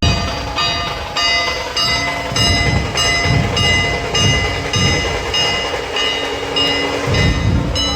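Festival procession percussion: ringing metallic strikes about two to three times a second over deep, irregular drum thuds, with a steady low tone behind them.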